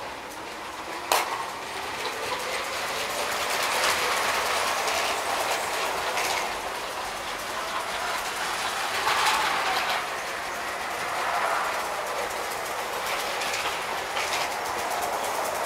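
LEGO 12-volt model trains running on the layout: a whirring, rattling clatter of small motors and wheels on track that grows louder and softer as the trains move. A single sharp click sounds about a second in.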